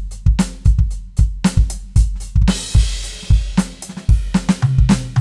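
Roland TD-17 electronic drum module playing a user-built kit: a steady groove of bass drum and snare with hi-hat. A crash cymbal rings out about halfway, and a tom fill stepping down in pitch comes in near the end.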